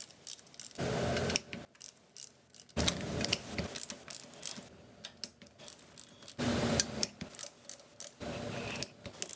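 Ratcheting box-end wrench clicking in several short bursts as it works nuts on the engine's studs.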